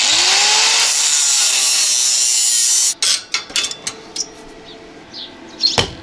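An angle grinder spins up and cuts into the steel tube of a bicycle luggage rack, a loud grinding hiss that stops abruptly after about three seconds. Metal clatter and the disc winding down follow, and near the end come a few hammer blows on metal.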